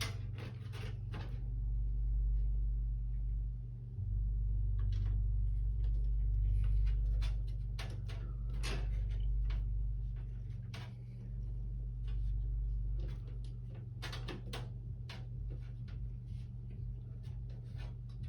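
Scattered light clicks and knocks of a motherboard being fitted into a PC case and screwed down, over a steady low hum.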